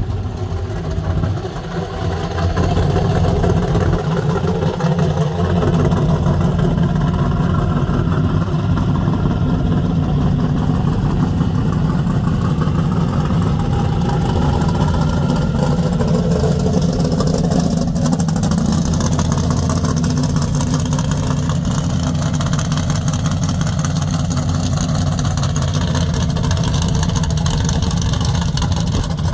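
1970 Chevelle SS's built V8 running at low speed as the car drives slowly past, a loud steady low engine rumble that grows louder about two seconds in as it comes close.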